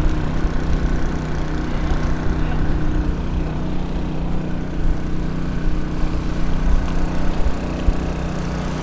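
Small Honda portable generator running steadily with a constant engine hum, over a low, uneven rumble.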